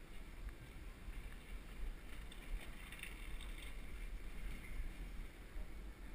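Wind buffeting the microphone of a bicycle rider's head-mounted camera, a fluctuating low rumble, with the hiss of the bike rolling over paving stones and a brief rattle in the middle.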